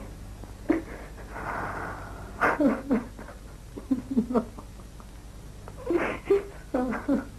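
A young child's wordless whimpering cries, in short broken bursts, over a steady low hum.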